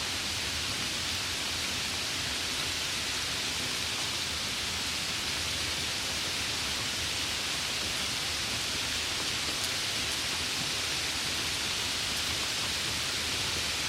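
Light rain falling steadily, an even hiss with no breaks and no thunder.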